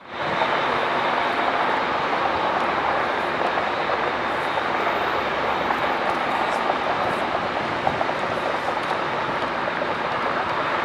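The four GE GEnx-2B turbofans of a Boeing 747-8 taxiing at low thrust: a steady jet engine noise with a thin high whine over it.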